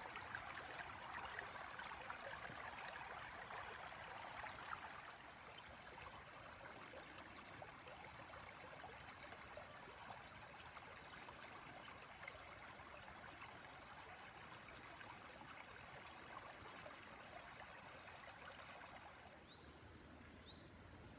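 Tanew river rushing over small rapids, a steady, even rush of water. It eases a little about five seconds in and drops further near the end, where a short bird chirp is heard.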